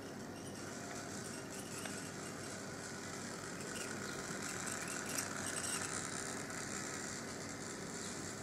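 Model diesel locomotive (Rivarossi D245, HO scale) running on sectional track: its electric motor and gears whirring and its wheels running on the rails, with a few sharp clicks. It grows louder as it passes closest, about halfway through.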